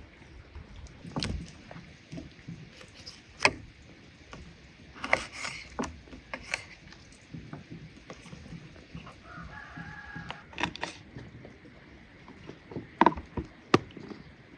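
Raw whole chicken being handled and cut with a knife on a wooden cutting board: scattered knocks and taps of the knife and board, with soft rustling as the bird is moved. The loudest knocks come near the end. A faint short call is heard about ten seconds in.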